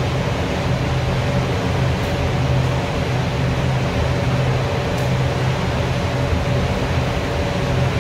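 Paint spray booth ventilation running steadily: a constant rush of moving air with a low, even hum.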